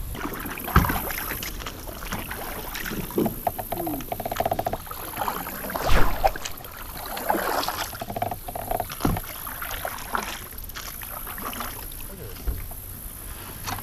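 Kayak paddle strokes through lily pads: the blades dipping and splashing, with scattered knocks and two short runs of rapid ticking.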